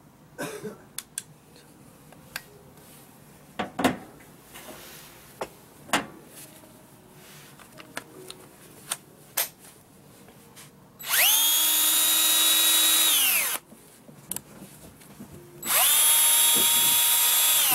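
DeWalt DCD710 10.8 V cordless drill driver run with no load, twice: each time the motor spins up quickly, holds a steady high whine, and winds down, the first run about two and a half seconds, the second about two. Before that, plastic clicks and knocks as the battery pack is slid onto the drill and the tool is handled.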